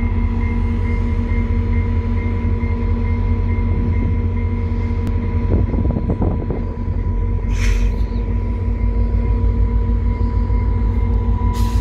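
Via Rail F40PH-2 diesel locomotive running at the head of a departing passenger train: a steady low rumble with a constant engine hum of several held tones. Two short hissing bursts break in, about eight seconds in and near the end.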